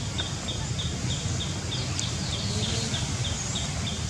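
A short, high chirp repeated evenly about three times a second, typical of a calling insect or bird in the surrounding vegetation, over a steady low rumble.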